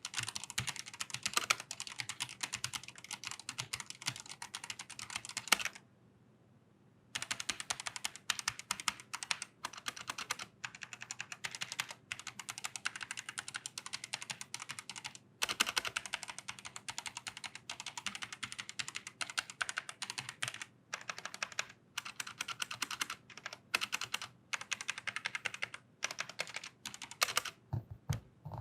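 Typing on a Rexus Legionnaire MX9P mechanical keyboard with Outemu Red linear switches under pudding keycaps: fast, continuous keystrokes in runs, broken by a pause of about a second and a half near the 6-second mark and by short breaks later on.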